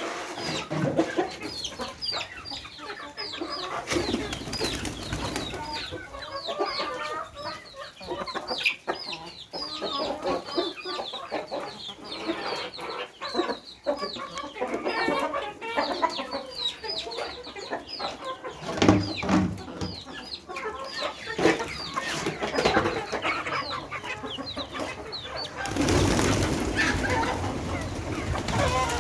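Flock of chickens clucking and chattering while they feed, with a steady stream of short, high chirps and light pecking taps. Near the end, a louder rushing noise covers the flock.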